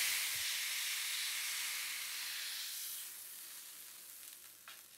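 A whole duck browning skin-side in a frying pan in its own rendered fat: a steady high sizzle that fades away gradually, with a faint click near the end.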